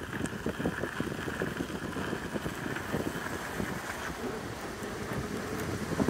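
Wind buffeting the microphone of a rider moving along on an electric unicycle, with the tyre rolling over a gravel trail underneath: a steady rough rumble and rushing noise.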